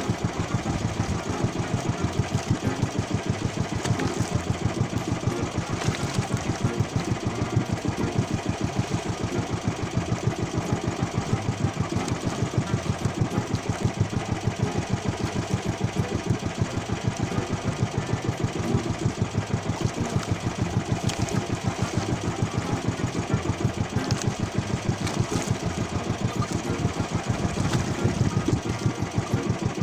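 Small fishing boat's engine running steadily at a constant speed, with an even, rapid firing beat.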